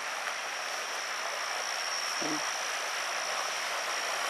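Steady splashing of a swimming pool's wall spout pouring into the water, with a constant high-pitched tone over it. One short, low call sounds briefly about two seconds in.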